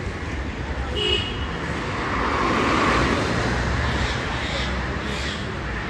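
Road traffic noise: a steady rumble of vehicles, growing louder for a moment about two to three seconds in as one passes.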